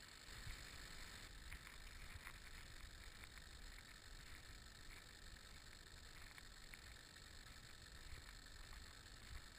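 Faint low wind rumble on the microphone, with a few soft scuffs scattered through it.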